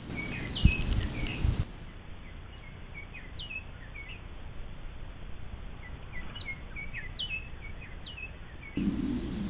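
Hooded oriole singing: a run of short, high, down-slurred chirps, several a second. Low thumps on the microphone come in the first couple of seconds, and a low rumble starts near the end.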